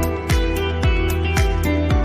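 Background music with a steady, deep beat about twice a second over sustained tones.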